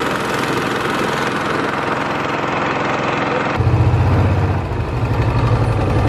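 Outboard motor of a small metal boat under way, a steady engine drone. About three and a half seconds in, the sound changes abruptly to a louder, deeper hum.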